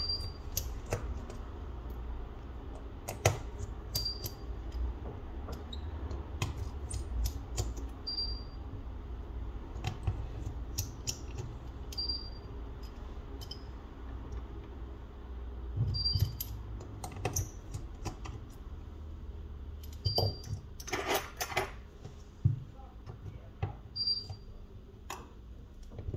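Small sharp clicks and taps of hand tools working on a smartphone, with a quick run of clicks about twenty seconds in. A short high beep repeats about every four seconds over a low steady hum.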